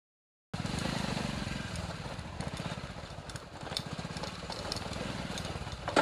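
Motorcycle engine running at low speed while riding over a rough dirt trail, with light clicks and rattles from the bike over the bumps. The sound cuts in suddenly about half a second in.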